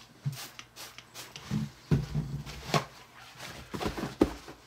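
Hands handling a plastic game tray and paper towels on a table: scattered light knocks, clicks and rustling.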